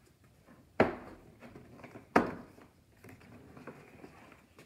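Two sharp clacks about a second and a half apart as a Ridgid shop vac's lid is unlatched, then softer rustling as the motor head is lifted off the drum.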